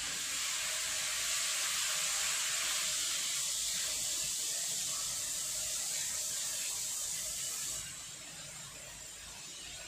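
Chopped onions sizzling in hot ghee in a stainless steel kadai as they are stirred: a steady hiss that drops noticeably about eight seconds in.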